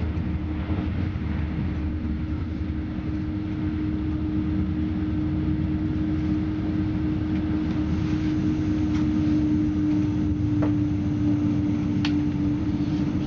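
Passenger train running, heard from inside the car: a steady low rumble with a constant hum. A few sharp clicks sound in the second half.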